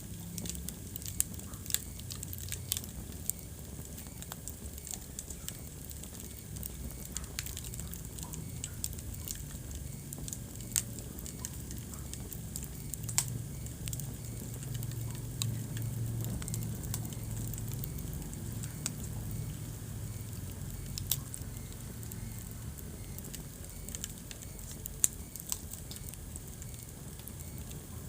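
Wood fire burning in a fireplace: irregular sharp crackles and pops, a few of them louder, over a low steady rumble of the flames that swells slightly midway.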